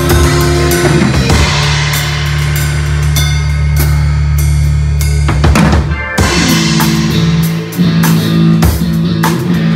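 A live band playing instrumentally: a drum kit with cymbals over held bass notes, with a short break in the groove about halfway through.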